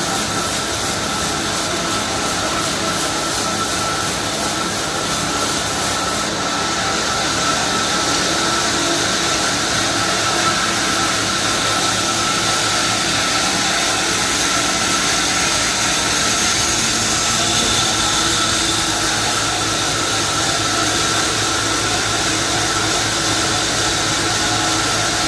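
Sawmill running steadily while sawing a freshly felled, wet mahogany log, with a constant high whine over the noise of the cut.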